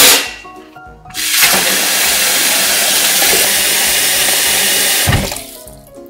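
Kitchen tap water running hard and steadily into a stainless steel sink over silver spoons and chopsticks, starting about a second in and stopping shortly before the end. Right at the start the metal utensils clatter against each other and the sink.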